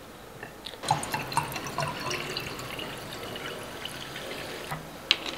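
Sparkling water poured into a wine glass, splashing and fizzing. The pour starts about a second in and eases off near the end.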